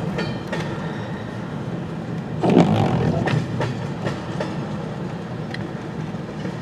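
Canadian National (CN) freight train rolling past, its cars' wheels giving a steady rumble with scattered sharp clicks over the rail joints and a louder clank about two and a half seconds in.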